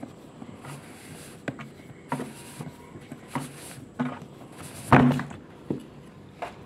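Irregular plastic clicks and knocks as a colour laser toner cartridge is handled and its roller turned by the drive gear. The loudest knock comes about five seconds in.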